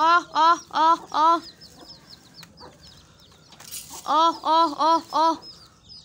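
Domestic hen clucking in two quick runs of four loud calls, one at the start and one about four seconds in, with chicks peeping faintly between them.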